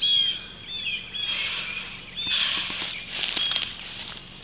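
Small birds chirping over and over in short, quick calls, with two longer stretches of hissing noise through the middle.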